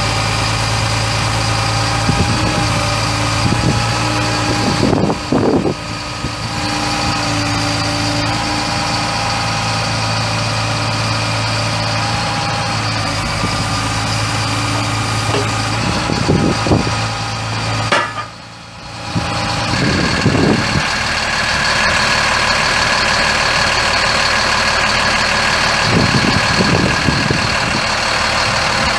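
Mercedes-Benz MBE 900 7.2-litre inline-six turbo diesel in a Freightliner M2 truck idling steadily, with the sound briefly dropping away about eighteen seconds in.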